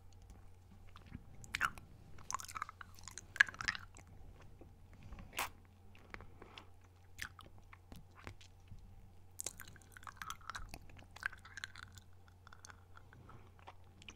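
Close-miked mouth sounds of a Dum Dums hard-candy lollipop being sucked: irregular wet smacks and sharp little clicks. A couple of louder clicks come about three and a half and five and a half seconds in.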